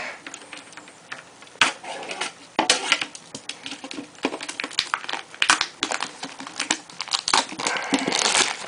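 A sealed Upper Deck Sweet Shot trading-card box being torn open by hand: irregular crinkling and tearing of its packaging, with sharp clicks and crackles.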